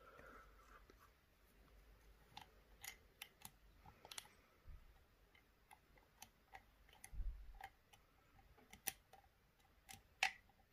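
Faint, scattered small clicks and scrapes of a lock pick working inside an Assa D12 v2 cylinder, the pick rubbing against the wards of the security keyway while feeling for binding pins under clockwise tension.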